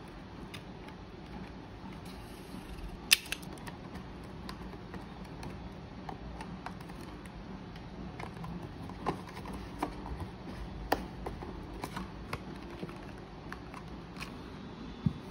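Cardstock tarot box being folded and a card deck handled and fitted into it by hand: scattered paper taps and clicks, the sharpest about three seconds in and another near the end, over a low steady hum.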